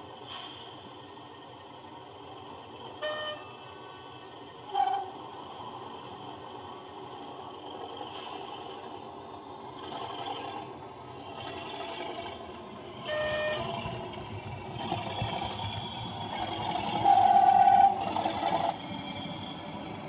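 Sound decoder of an Accurascale Class 37 model diesel locomotive playing its diesel engine sound through the model's small speaker, growing louder in the second half as the model comes closer. Short horn toots about three and five seconds in and again around the middle, then a longer horn blast near the end, the loudest sound.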